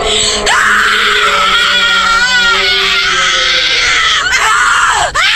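A person screaming in one long, wailing cry that wavers in the middle, followed by shorter cries near the end.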